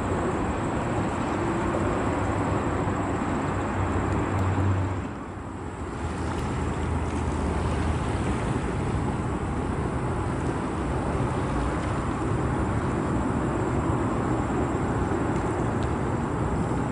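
Steady low rumble of distant diesel engines with wind noise on the microphone. First comes a tugboat pushing a loaded sand barge; after a short drop in level about five seconds in, CSX freight locomotives cross a steel truss bridge.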